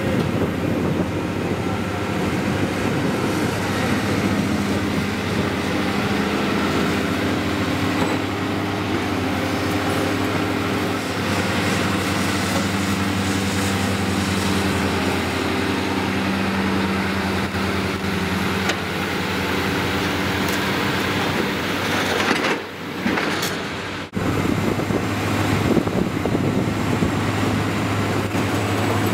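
Diesel engine and hydraulics of a Hitachi Zaxis ZX470-3 high-reach demolition excavator running under working load, its pitch rising and falling as the boom and grapple move. There is a brief dip in the sound about three-quarters of the way through.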